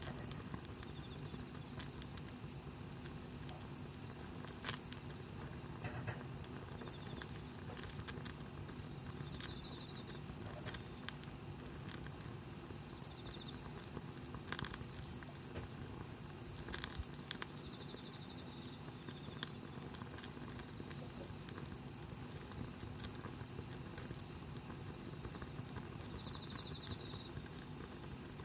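Wood campfire burning with a steady low rush and scattered crackles, with a few sharper pops.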